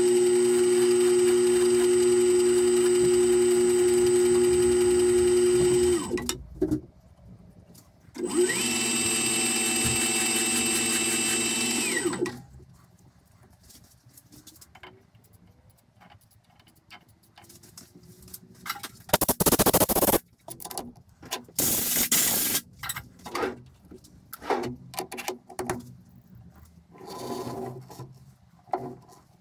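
Myford Super 7 metal lathe running with a steady whine, switched off about six seconds in, started again for about four seconds and stopped. Then scattered clicks and knocks from handling at the machine, with two short loud bursts of noise in the second half.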